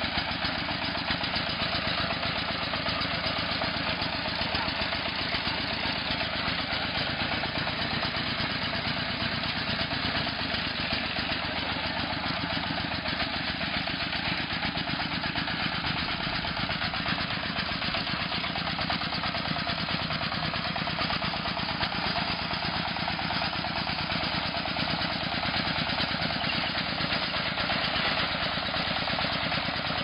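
Engine of a homemade stump-pulling machine running steadily, with an even, rapid firing rhythm.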